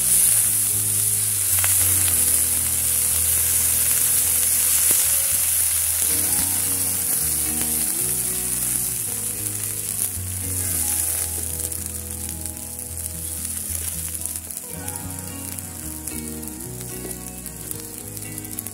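Water poured into a hot, oiled wok of stir-fried cassava leaves sizzles loudly as it hits the hot pan. The hiss then slowly dies down as the water heats.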